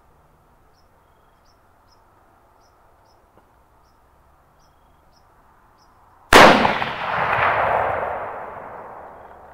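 A single rifle shot about six seconds in, its report rolling away over the following three seconds. Before the shot there are only faint, high, evenly spaced chirps.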